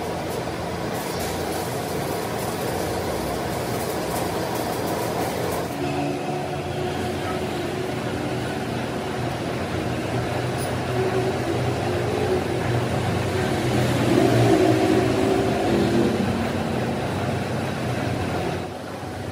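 Heavy machine-shop machinery, likely a metal lathe, running steadily with a low mechanical hum. The sound changes abruptly about six seconds in and dips briefly near the end.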